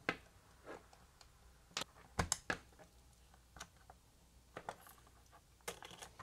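Hands handling plastic wire connectors and leads on a metal mounting plate: scattered small clicks and taps, a sharper pair about two seconds in.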